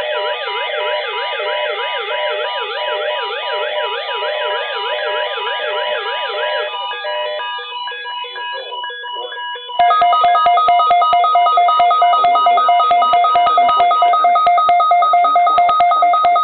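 Several NOAA weather radios sounding their alert alarms for an incoming Child Abduction Emergency. Warbling siren-like sweeps over a steady tone fade out, and about ten seconds in a louder, rapidly pulsing two-tone beep takes over.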